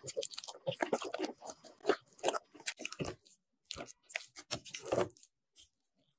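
Crunching and crackling of food being handled during baking prep, a quick run of crisp clicks that stops a little after five seconds in.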